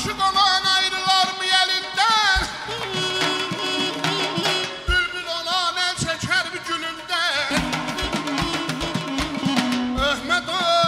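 Azerbaijani ashiq folk music: a saz and folk ensemble playing an ornamented, wavering melody over regular drum beats.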